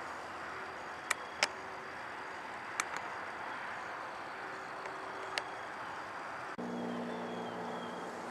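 Steady outdoor background noise with a few sharp clicks scattered through it. An abrupt cut about six and a half seconds in brings in a low steady hum.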